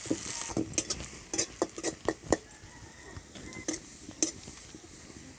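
Metal spatula scraping and knocking against a metal kadai as sliced onions are stirred and fried in oil, with a soft sizzle underneath. The knocks come thick in the first two seconds or so, then only now and then.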